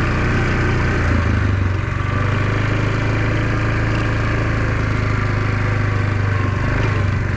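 Engine of a small farm vehicle running steadily, its note shifting slightly about two seconds in.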